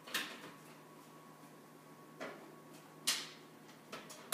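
Wall oven door being opened and a metal loaf pan put inside: a few separate clunks and knocks of the door and pan, the loudest about three seconds in and another loud one at the very end as the door shuts.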